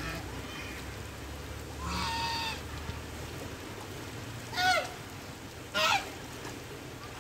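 White domestic geese calling three times over steady rain: one longer, level honk about two seconds in, then two short calls falling in pitch around four and a half and six seconds in, the last two the loudest. Rain hisses steadily on the puddle and muddy ground throughout.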